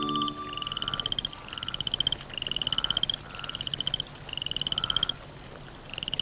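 Frogs calling: a run of about six pulsed calls, each a quick string of clicks under a second long, repeating about once a second.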